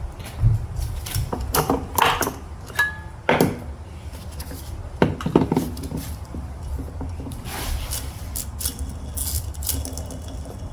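Metal tools and parts clinking and knocking against a transmission case during disassembly, a handful of irregular sharp knocks with a brief metallic ring about three seconds in, over a steady low rumble.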